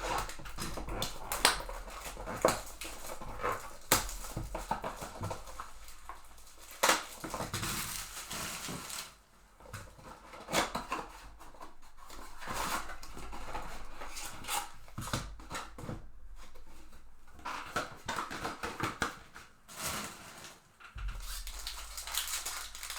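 Trading-card box and foil packs being torn open and handled: crinkling wrappers, tearing and sharp snaps of paper and plastic, in an irregular run.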